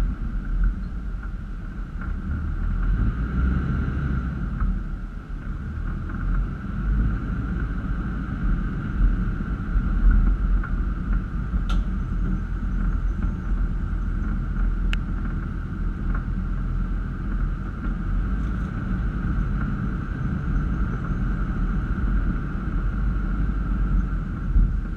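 Toyota Land Cruiser FZJ80's 4.5-litre straight-six running at low speed as the truck crawls a rough dirt trail, a steady low rumble with a steady higher hum over it. Two sharp ticks about three seconds apart come around the middle.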